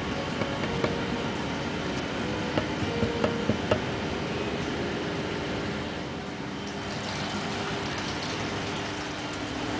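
Steady hum of an indoor aquarium hall, the kind made by air conditioning and tank equipment, with a handful of light clicks about three seconds in.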